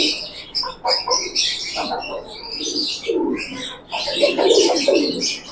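Domestic pigeons cooing again and again, over a busy chatter of high chirps from other small birds.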